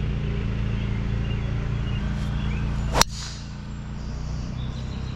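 A golf club strikes a ball once, about three seconds in, with a single sharp crack. A steady low hum runs underneath.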